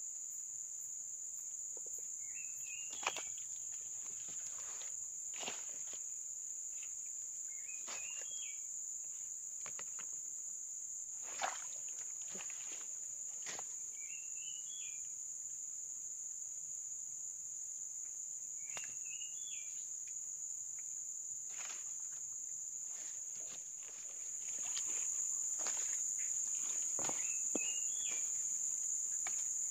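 Steady high-pitched drone of insects that grows louder about three-quarters of the way through, with a bird repeating a short rising call every five or six seconds. Occasional rustling and snapping of dry leaves and twigs.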